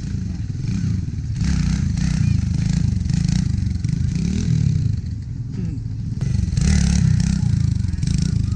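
Small green pit bike's engine revving in repeated surges as the rider throttles up into wheelies, with louder bursts about a second and a half in, a few seconds in, and again near the end.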